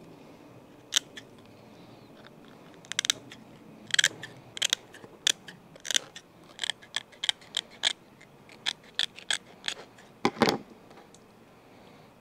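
Fiskars shears snipping through a gar's hard, scale-armoured belly skin in a series of sharp, irregular snips, about two a second at the busiest, with one louder clack near the end.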